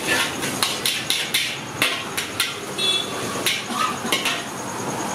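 Metal spatula striking and scraping a large wok while chicken fried rice is stir-fried, in quick irregular strokes of about two to three a second that stop near the end. A steady hiss runs underneath.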